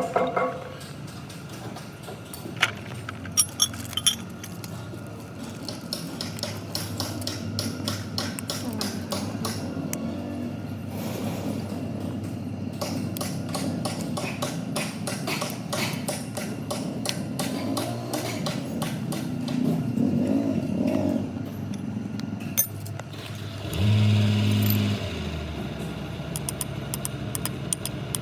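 Metal parts and tools clinking and knocking over a steady machine hum, during work on an excavator hydraulic cylinder. A louder low hum swells for about a second near the end.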